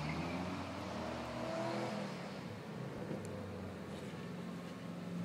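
Drag-racing car engines at the starting line, heard at a distance: revving up over the first couple of seconds, then running steadily at a lower pitch.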